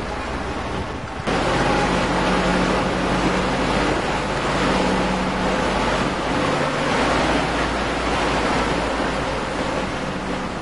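An off-road vehicle's engine runs steadily under a loud rush of wind noise on the microphone. Both get louder suddenly about a second in.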